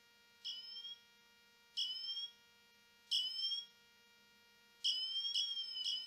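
Apple Watch Ultra's emergency siren sounding from the watch's speaker: short rising high-pitched chirps about every second and a half, growing louder, then from about five seconds in a continuous run of rising sweeps, about two a second.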